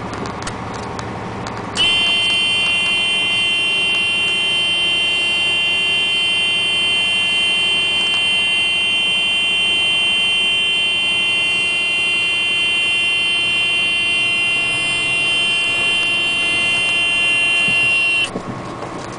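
A steady, high-pitched buzzer-like tone with many overtones sounds for about sixteen seconds, starting abruptly about two seconds in and cutting off sharply near the end. Underneath runs the truck's engine and road noise as it drives over gravel.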